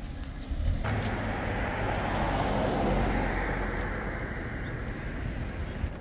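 Road traffic: a vehicle going by, its tyre and engine noise starting abruptly about a second in, swelling, then fading away slowly, over a low steady rumble.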